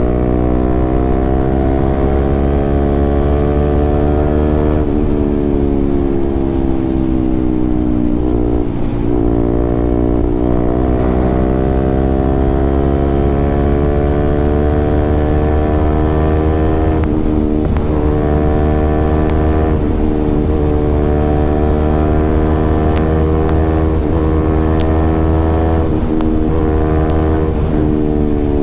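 KTM RC 200's single-cylinder four-stroke engine running loudly through an aftermarket SC Project exhaust while riding at road speed. The engine note dips a little, climbs slowly and falls again near the end.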